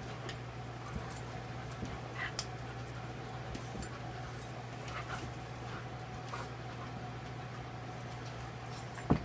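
Dogs at play: a few short, faint whimpers and yips, and one sharp knock near the end.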